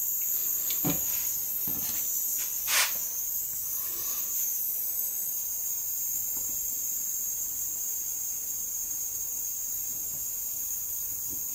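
Steady high-pitched hiss, with a few light clicks and taps in the first three seconds as the wires and soldering iron are handled.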